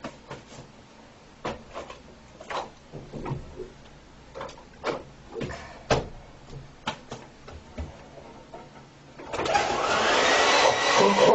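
Scattered knocks and clicks, then about nine seconds in a handheld hair dryer switches on and runs loudly with a steady blowing whir.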